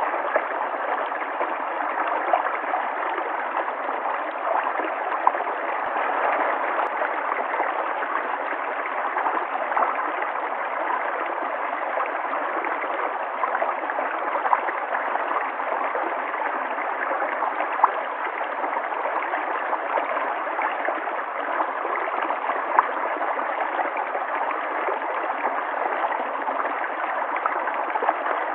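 River water flowing steadily, with brief louder splashes now and then.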